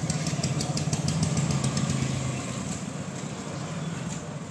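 Motorcycle engines and light road traffic running past at close range, fading somewhat toward the end. In the first two seconds there is also a fast, high ticking at about five strokes a second.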